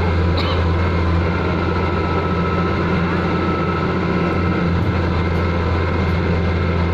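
Heavy diesel engine of road-paving machinery running steadily at constant speed, a deep even drone.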